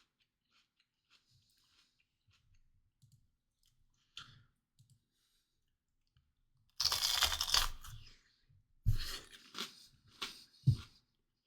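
A person biting and chewing a raw bell pepper close to the microphone. There are crunchy bites, the loudest about seven seconds in, followed by several shorter crunches near the end.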